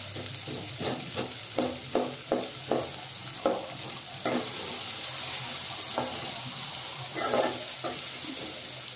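Sliced onions, green chillies and garlic sizzling as they fry in oil in an aluminium pot, stirred with a slotted metal spatula. There is a quick run of scraping strokes, two or three a second, for the first few seconds, then a few more strokes near the end.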